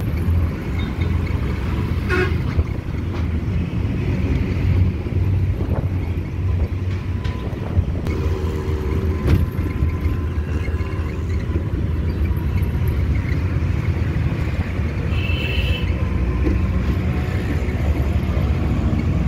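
Auto rickshaw engine running as it drives through traffic, heard from inside its open cabin, with vehicle horns honking now and then and most strongly about 15 seconds in.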